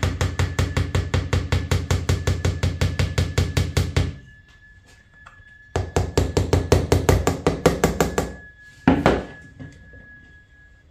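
Quick, light tapping on a lunchbox mold filled with wet white-cement and marble-dust mix, about six knocks a second, to settle the mix into the mold. Two runs of tapping with a short pause between, then one louder knock.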